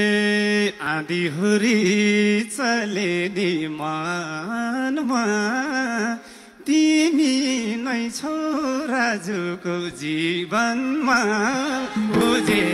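A man singing a Nepali dohori verse into a microphone, in a long held note at the start and then in wavering, ornamented phrases.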